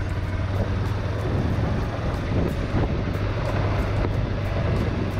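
Polaris RZR 570 side-by-side's single-cylinder engine running steadily with a low hum, under a rush of wind and driving noise.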